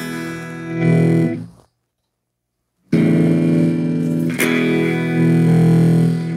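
Electric guitar chords played through a Peavey T.G. Raxx tube preamp (two 12AX7s) and an amp, the preamp working. A chord rings and stops abruptly about a second and a half in; after a second of silence, chords are struck again about three and four and a half seconds in and ring out, fading near the end.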